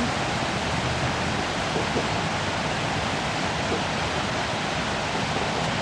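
A large waterfall pouring steadily: a constant, even rush of falling water.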